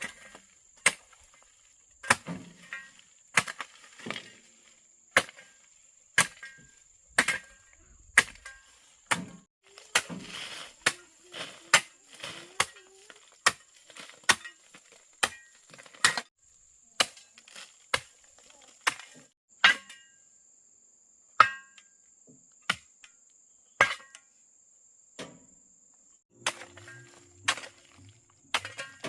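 Sharp chopping strikes on wood, about one a second, over a steady high insect whine.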